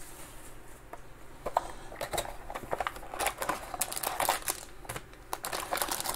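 Cardboard packaging and foil card packs of a 2021 Panini XR Football hobby box being handled as the box is opened and its two packs are lifted out: scattered crinkling, rustling and light clicks, busiest through the middle.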